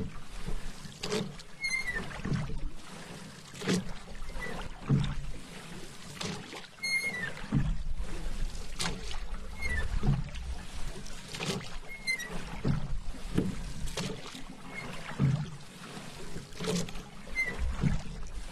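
Paddle strokes in calm water, a steady rhythm of soft swishes and splashes a little over a second apart, with small drips between strokes.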